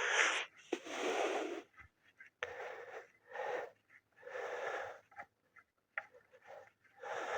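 A man breathing heavily and audibly, a run of about six noisy breaths spaced roughly a second apart, out of breath after a long struggle to turn a tight crankshaft pulley nut.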